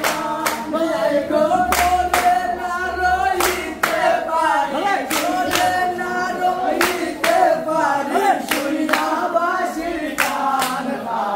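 Group of voices singing a Sylheti dhamail folk song in unaccompanied chorus, with rhythmic hand claps keeping a steady beat.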